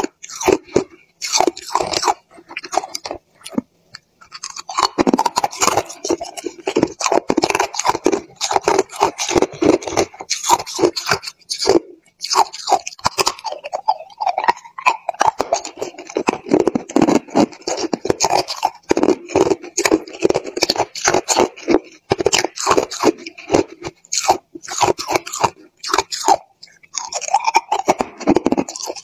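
Hard chunks of clear ice being bitten and chewed, a dense run of sharp crunches and cracks with two brief lulls, one about four seconds in and one near the middle.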